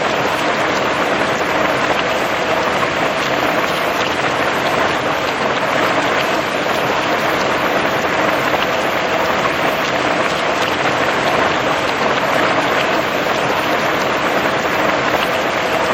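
Steady heavy rain, a dense even hiss of falling drops with scattered small ticks of drops hitting a surface.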